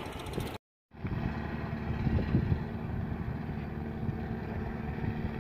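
Boat engine running steadily as a wooden fishing boat motors past, a low even hum under wind buffeting the microphone. The sound drops out briefly under a second in.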